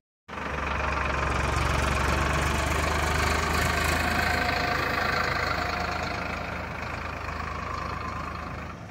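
Tractor engine running steadily with a deep, constant hum, easing off somewhat in loudness over the last few seconds.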